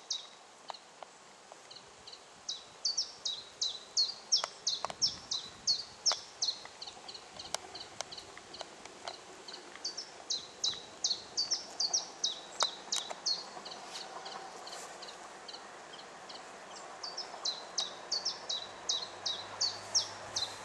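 A songbird singing runs of quick, sharp, falling chirps, about two or three a second, in three bursts of several seconds each. Near the end the low rumble of an approaching train begins to rise.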